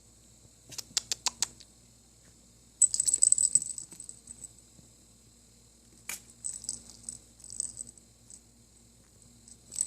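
A kitten's small jingling rattle toy being batted around. About a second in come a few sharp clicks, then a dense jingling run around three seconds in, a single sharp click near six seconds, and scattered short jingles after that.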